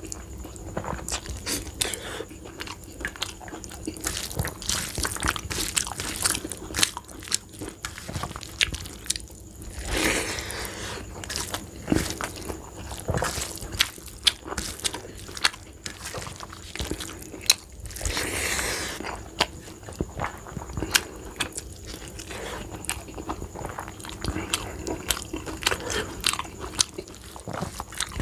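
Chewing and lip-smacking of a person eating rice with dal and stuffed bitter gourd by hand, with many sharp wet clicks. There is also the sound of fingers mixing and gathering rice on a steel plate between mouthfuls.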